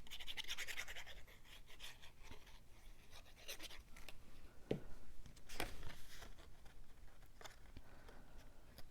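Cardstock pieces being handled and pressed into place: light paper rustling and scratching, with scattered small taps and clicks, a few sharper ones around the middle.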